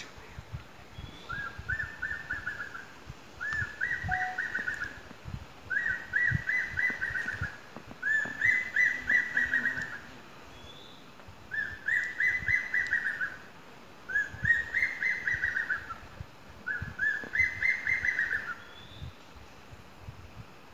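Ornate hawk-eagle calling: seven quick series of high whistled notes, each about a second long, repeated every two to three seconds with one longer pause about halfway through.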